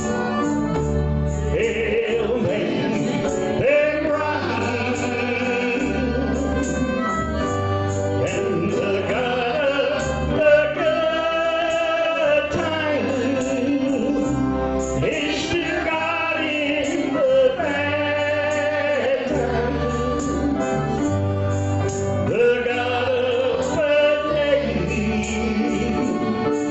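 A man singing a gospel song into a microphone, over instrumental accompaniment whose low chords change every couple of seconds.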